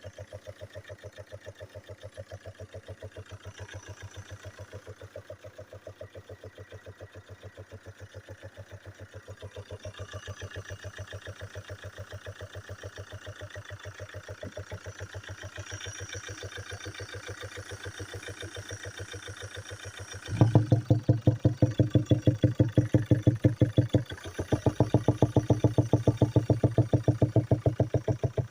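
Chevrolet Captiva / Opel Antara 2.0 diesel engine idling with a fast, even knock, much louder from about two-thirds of the way in, with a short dip shortly after. The knock comes from the valve train: a worn camshaft with a fallen-out rocker arm.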